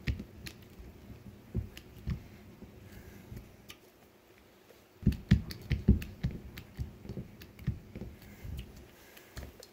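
Hydraulic hand cable crimper with number 6 dies being worked on a copper butt splice on 6-gauge wire: irregular clicks and knocks of metal parts and the handle, sparse at first and coming in a quick cluster of low thumps about halfway through as the crimp is made.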